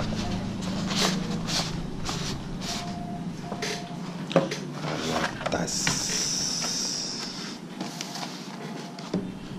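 Rustling, scraping and light knocks as a fabric gimbal carrying pouch is slid out of a paper sleeve and handled on a wooden table, with a longer scraping slide about six seconds in.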